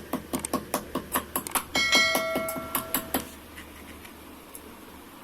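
Fast, even knocking, about seven knocks a second, then a single ringing metallic strike that rings for about a second and a half before dying away.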